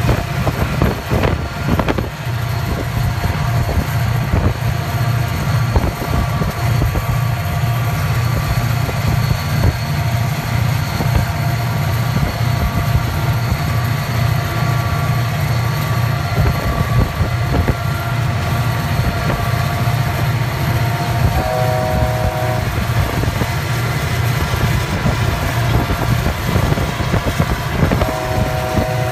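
EMD diesel freight locomotives passing, their engines running with a steady deep rumble and an even low throb. A brief chord-like tone sounds twice, about twenty-two seconds in and again near the end.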